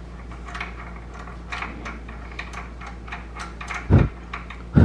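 Ratchet wrench clicking in short, irregular runs as cylinder head bolts are backed out, followed by two loud, dull thumps near the end.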